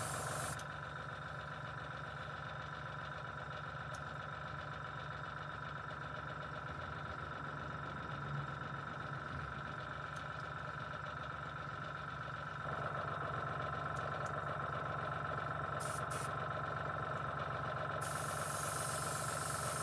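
Airbrush compressor running with a steady hum, a little louder from about two-thirds of the way through. Air hisses through the airbrush briefly at the start and again near the end while the paint is not coming out; the airbrush turns out to be locked.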